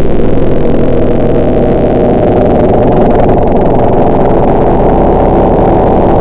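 Chainsaw engine running loud and continuously, its pitch wavering a little, heard muffled through window glass.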